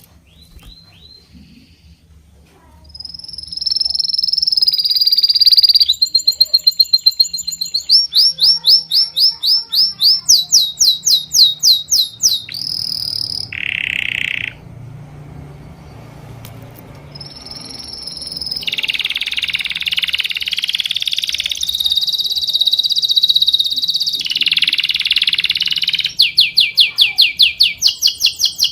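Birds singing: loud, high-pitched whistled phrases and trills of quickly repeated notes, one after another, with a short lull about halfway through.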